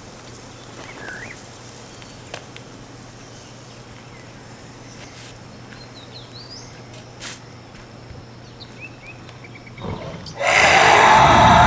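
Quiet outdoor nature ambience with a few short, scattered bird-like chirps. About ten seconds in, a loud, rough roar sound effect bursts in suddenly and keeps going.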